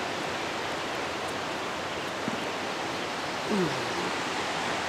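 Steady rushing hiss of outdoor ambience in a wooded clearing. A short voice-like sound comes about three and a half seconds in.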